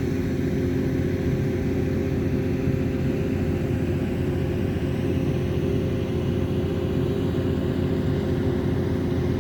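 A steady motor hum holding one unchanging pitch, with no rise or fall, like an engine running at a constant speed.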